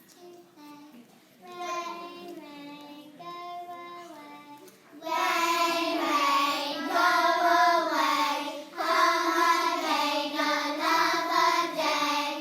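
A class of young children singing a song together, softer at first and then much louder and fuller from about five seconds in.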